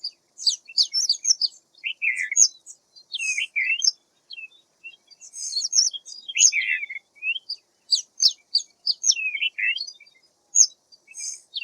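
White wagtail singing: a varied twittering of quick chirps and slurred high notes in short bursts, with brief pauses between phrases.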